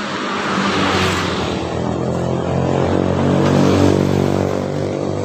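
Road vehicle going by in the street: a rushing noise at first, then a steady engine hum that swells a little about three to four seconds in.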